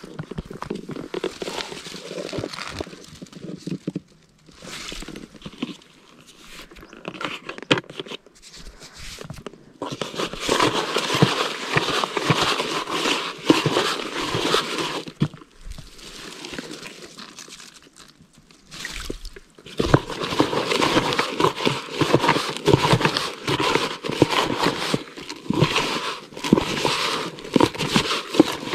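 Irregular rustling and crinkling with many small crackles and clicks, close to the microphone, in bursts that come and go.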